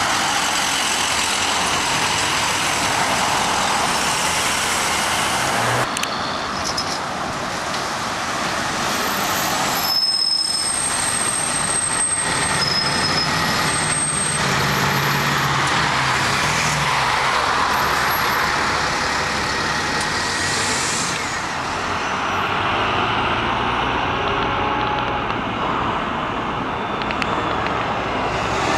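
City transit buses and road traffic passing close by: diesel bus engines running with tyre and road noise. A few short high-pitched squeaks are heard around the middle.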